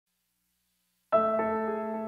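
Silence for about a second, then background piano music begins, with a chord struck and further notes following in quick succession.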